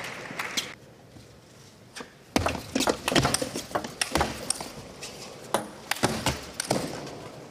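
Table tennis rally: a celluloid ball clicking sharply off the bats and bouncing on the table, two to three hits a second, beginning about two and a half seconds in. Crowd applause dies away in the first second.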